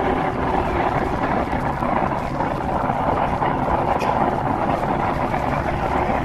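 Steady passenger-airliner cabin noise: engines and rushing air heard from inside the cabin, an even rush without changes.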